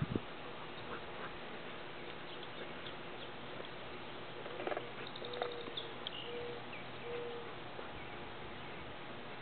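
Rottweilers at play giving a few short whines about five to seven seconds in, over a steady outdoor hiss.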